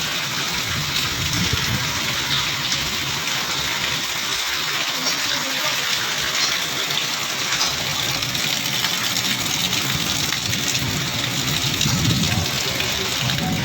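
Heavy monsoon rain pouring down steadily, a dense even hiss, with strong wind rumbling and gusting underneath.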